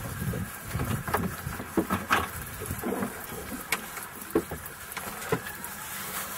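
Steady hum and wind noise aboard a fishing boat, broken by irregular short knocks and clatter.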